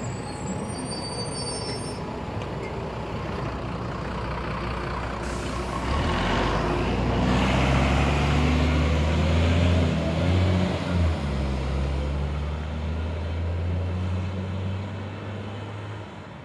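Mercedes-Benz O500U city bus's diesel engine running, with a burst of air hissing from the air brakes about five seconds in. The engine then sets up a louder, deep, steady drone that fades near the end.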